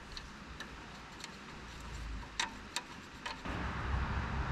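A few light metal ticks and clicks as a steel brake hard line's flare nut is turned by hand into the rubber brake hose fitting. A steady low rumble comes up about three and a half seconds in.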